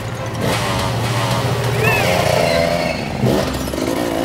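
Cartoon motorcycle engine sound effect, running steadily and revving as the bike pulls away.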